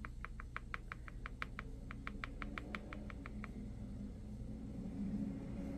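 A quick, even series of light clicks, about six a second, in two runs with a short break between them, over a low steady hum.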